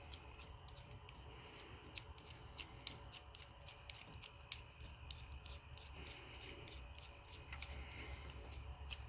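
Quick, irregular run of small sharp clicks from hands working a plastic trickle-charger socket, unscrewing its threaded backing piece.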